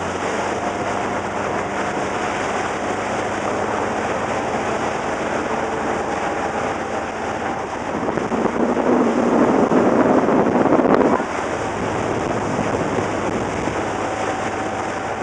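Wind buffeting the microphone over the rush and splash of a boat's wake. The steady noise swells louder for about three seconds past the middle, then drops off suddenly.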